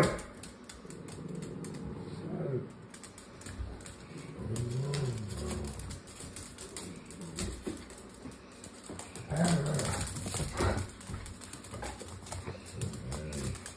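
Small dogs play-fighting, giving low play growls and grunts in short bouts, with a sharper outburst about ten seconds in. Claws click and scrabble on the hard floor between them.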